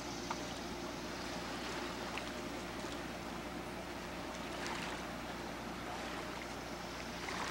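Small motorboat's outboard engine running steadily while towing a rider on an inflatable float, under a constant hiss of wind and water.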